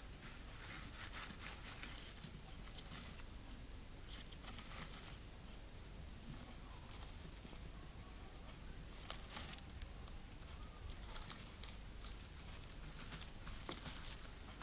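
Gerbils rustling and scratching in shredded paper bedding, in short bursts every few seconds, with a few brief high chirps in between.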